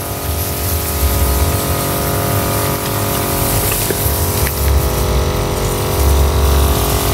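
Motorised crop sprayer running steadily while spraying, a continuous even machine tone, with a low rumble that swells now and then.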